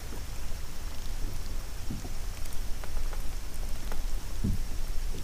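Light water lapping and dripping around a small kayak, with scattered faint ticks and a couple of soft splashes over a steady low rumble.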